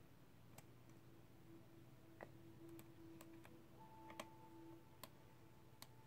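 Faint, scattered clicks of a hook pick and tension wrench working the pins inside a five-pin padlock, over near silence.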